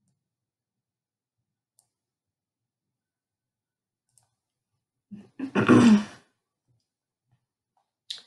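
Mostly silence, broken about five seconds in by a woman's short wordless vocal sound lasting about a second, and a brief faint click near the end.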